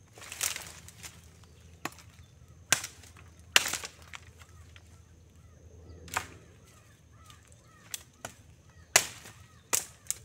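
Machete chopping through tree branches: about ten sharp blows at uneven intervals, the heaviest a third of the way in and near the end.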